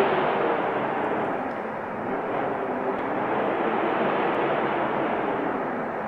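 Snowstorm wind blowing as a steady rushing noise, easing slightly about two seconds in.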